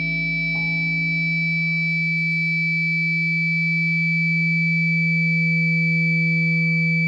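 Instrumental background music: a sustained, droning chord of held tones, with a note change about half a second in and another around four seconds in.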